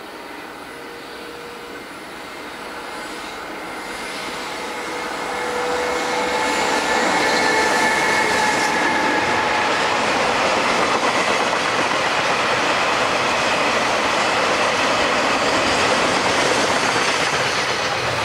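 Freight train of oil tank wagons hauled by an EH500 electric locomotive passing close by. Its rolling noise grows louder over the first six seconds, then holds steady as the tank cars run past, with a few thin steady tones over it.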